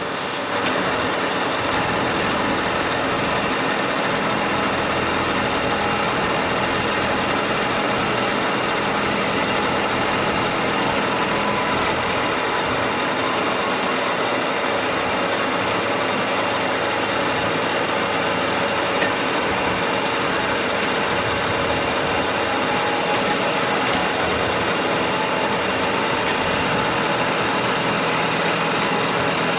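Milling machine running steadily with its end mill spinning at the aluminium part: a constant machine hum carrying several steady tones.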